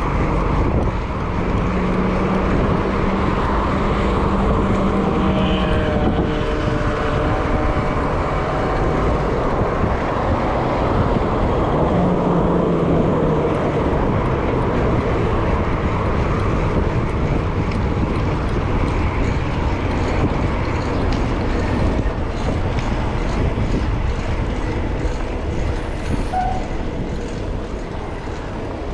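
Steady low rumble of wind and road noise from riding a bicycle through city traffic, with motor vehicles passing. A few steady droning vehicle tones come and go in the first half.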